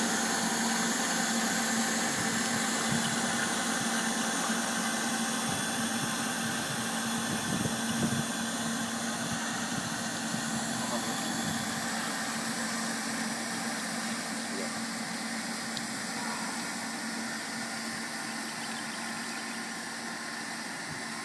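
Machinery running with a steady hum and hiss, a constant low-pitched tone underneath, slowly getting quieter.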